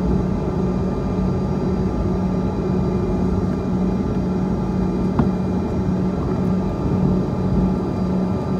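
Cabin noise inside a Bombardier CRJ-200 just after landing: its rear-mounted GE CF34 turbofan engines running at low power with a steady hum over a low rumble. A faint click sounds about five seconds in.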